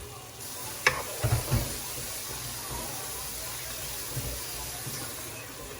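Cut potatoes going into a pan of frying masala: a steady sizzle that sets in at the start, with a sharp knock about a second in and a few soft thumps just after.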